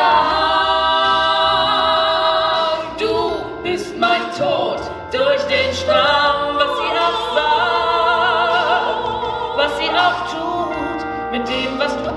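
Two women singing together into microphones, in a big theatrical style with long held notes and vibrato.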